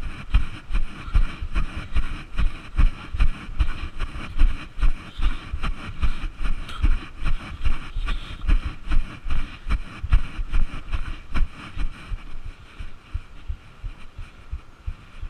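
Footfalls of a runner wearing the camera on the body, low thuds about two to three a second, weakening in the last few seconds.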